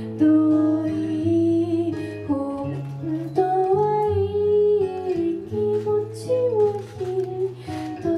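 Music: a song with guitar over a bass line that changes note about once a second.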